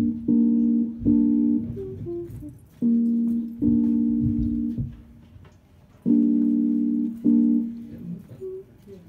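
Electric keyboard playing held chords in a short repeated figure: several chords struck one after another, a pause of about a second, then the figure again.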